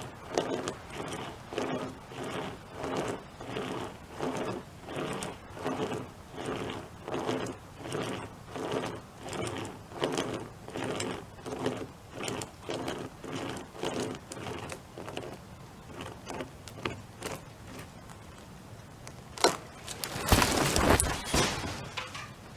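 Rope chainsaw sawing through a tree branch, the chain rasping back and forth at about two strokes a second, then slowing and fading. Near the end comes a sharp crack and then a loud crash lasting about a second and a half.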